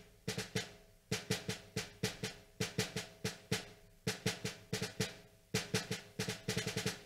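Solo snare drum part played by EZdrummer's sampled snare, triggered by MIDI notes taken from a recorded snare track to replace its dull sound. Quick runs of hits at varying loudness, broken by short gaps about every one and a half seconds.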